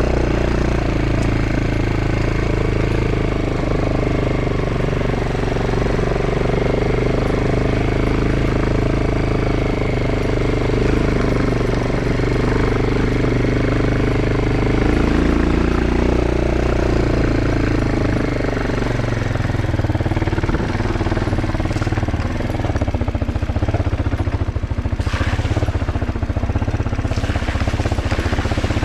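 Motorcycle engine running steadily while riding, its note changing about halfway through.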